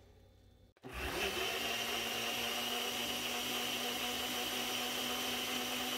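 Ninja Auto-iQ countertop blender running at a steady pitch, blending soaked fenugreek seeds and their liquid into a smooth mixture. The motor sound cuts in abruptly just under a second in, after a moment of quiet.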